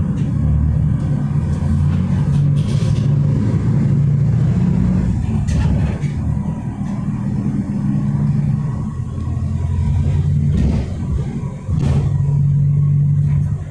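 City bus engine running under way, its low note rising and falling several times as the bus accelerates and changes speed, with a few brief knocks and rattles.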